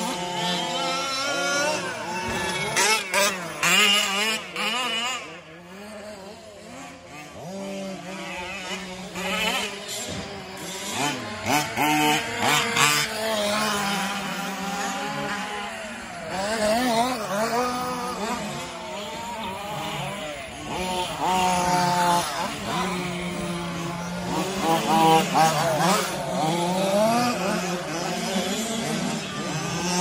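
Several remote-control 4WD race trucks' motors running, their pitch rising and falling constantly and overlapping as the trucks accelerate and brake around the dirt track, with scattered clicks and knocks.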